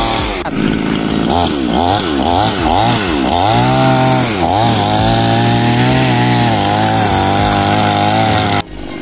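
Two-stroke gasoline chainsaw revving up and down several times, then held at steady high revs as it cuts at the base of a tree trunk. It stops abruptly near the end.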